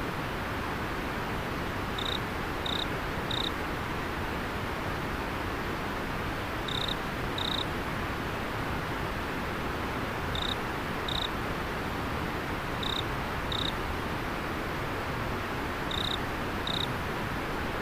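River water flowing steadily, with an autumn insect chirping over it: short high notes in pairs, a pair every three to four seconds.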